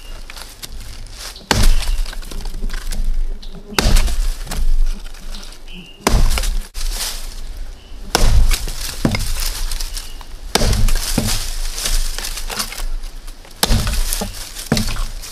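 Hatchet chopping into a rotten log: about six heavy blows a couple of seconds apart, with lighter strikes between them.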